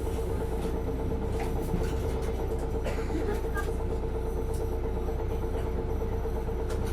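Isuzu Erga city bus (PKG-LV234L2, six-speed manual) under way, its diesel engine running at a steady pitch over a low rumble, with a few light rattles.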